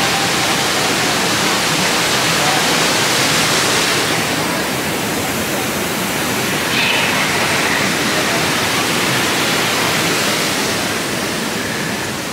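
Steady rushing of a waterfall, a loud even hiss that eases slightly about four seconds in.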